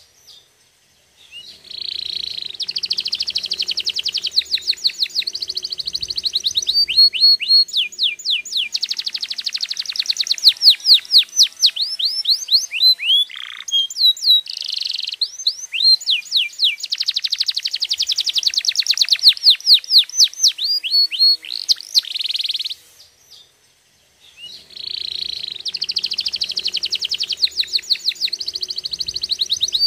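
Domestic canary singing: long phrases of rapid trills and quickly repeated sweeping notes, broken by short pauses about a second in and about three-quarters of the way through.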